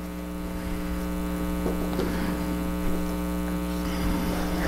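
Steady electrical hum, with the faint scrape of a steel blade being rubbed back and forth on a sharpening stone.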